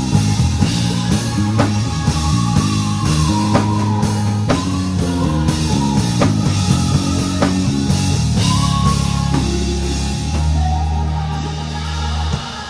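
Live worship band playing: drum kit with steady snare and cymbal strikes over bass and guitar. Near the end the drums and bass cut off suddenly.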